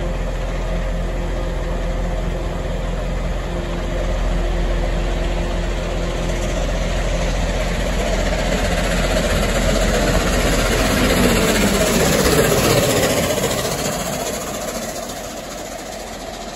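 A standing diesel multiple unit idles with a steady low hum. From about eight seconds in, LNER A4 Pacific steam locomotive 60007 Sir Nigel Gresley runs through at speed, growing loud and dropping in pitch as it passes, then its coaches rumble by on the rails.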